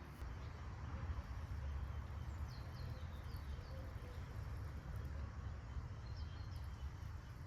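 Outdoor rumble, like wind buffeting the microphone, with a few faint, high, quick bird chirps: a short run of them about a third of the way in and a couple more near the end.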